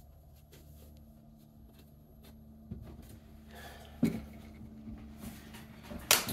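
Quiet handling noises: a few light knocks and clicks over a low steady hum, with a sharper click about four seconds in and another just before the end.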